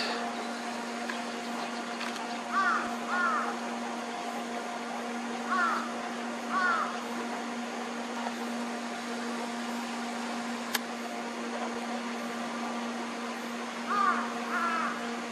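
A bird calling: short calls that rise and fall, coming in pairs three times, over a steady low hum.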